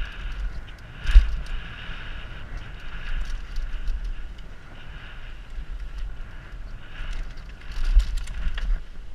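Downhill mountain bike ridden fast over a rough dirt trail: a steady clatter of the bike and tyres on dirt, with wind rumbling on the helmet-mounted camera's microphone. Hard knocks from the bike hitting bumps about a second in and again near the end.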